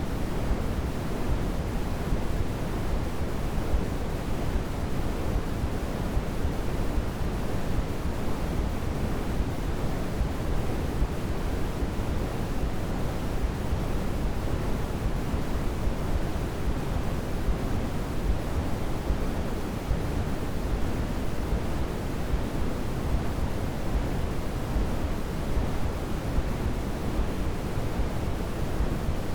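Steady white noise sleep sound, a constant even hiss with more weight in the low end than the high, unchanging throughout.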